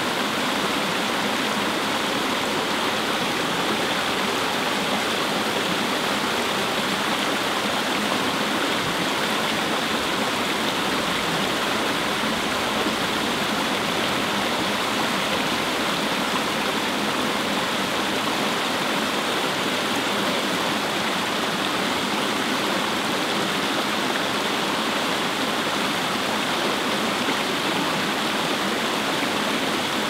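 Shallow mountain stream running over stones in small cascades: a steady, even rush of splashing water with no breaks.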